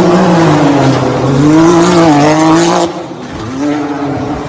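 Off-road vehicle engine revving loud, its pitch wavering up and down. About three seconds in it drops away sharply to a quieter running sound.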